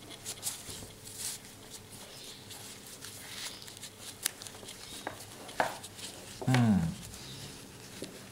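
Handling noise as a flashlight is worked into a plastic diffuser holder: scattered light clicks, taps and rustles. A brief voiced sound, like a short hum or grunt, comes about two-thirds of the way in.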